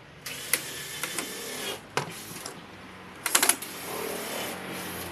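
An electric screwdriver driving a screw into wood in several short bursts, with sharp clicking and rattling. The teacher next says the bit is not lined up with the screw's cross head, which makes the sound odd.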